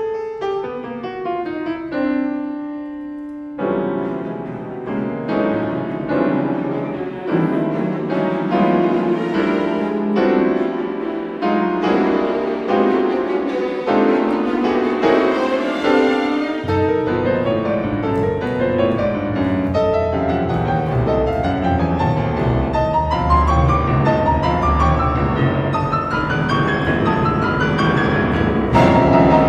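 Classical music from piano and chamber string orchestra: the piano plays runs of struck notes, and about halfway in low sustained string notes enter beneath it while rising lines build up toward the end.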